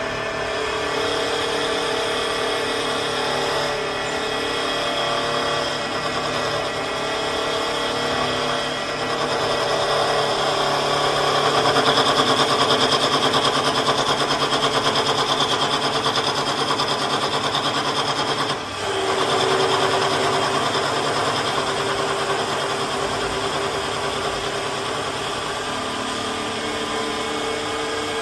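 Wood lathe with CNC control and automatic feeding running, with a steady machine whine and the noise of a cutter turning spinning wood. It dips briefly about two-thirds of the way through, then carries on with a slightly different steady tone.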